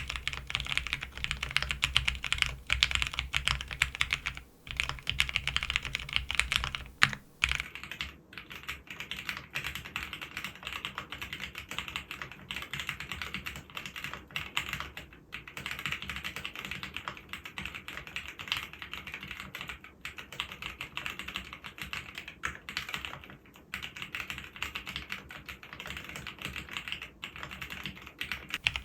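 Continuous fast typing on a custom mechanical keyboard with lubed Cherry MX Vintage Brown switches in a 4GT Silhouette case with a polycarbonate half plate. The keystrokes run steadily, with short pauses about four and a half and about seven seconds in.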